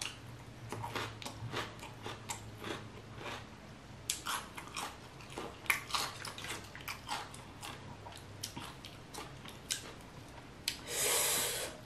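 Close-miked chewing of a crisp raw vegetable, with many small wet crunches throughout. Near the end there is a brief burst of rustling, about a second long.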